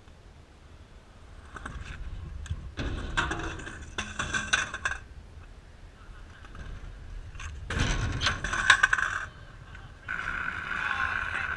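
Stunt scooter wheels rolling and scraping over concrete in several bursts, with the loudest clatter about two-thirds of the way through as the rider comes down from a trick.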